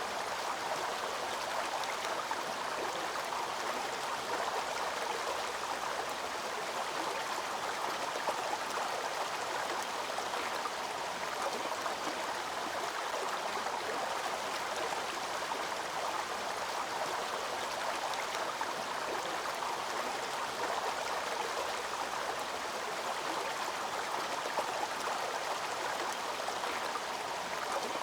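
Water of a waterfall rushing and splashing steadily, an even rush with no breaks.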